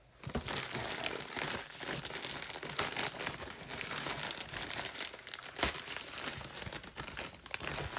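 Plastic packaging crinkling and crackling continuously as a package is handled and unpacked.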